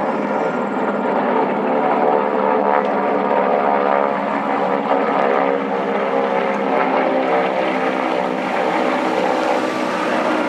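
Piston-engine propeller airplane running loud and steady: a dense engine drone with many overtones.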